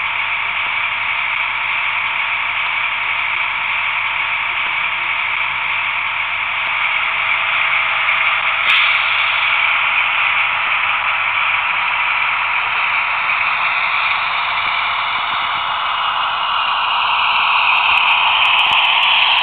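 Sound decoder of a Roco H0 model DB class 221 diesel locomotive playing a diesel engine running sound through its small onboard speaker, thin and tinny with no bass. A click comes about nine seconds in, and the engine sound changes and grows a little louder near the end as the model gets moving.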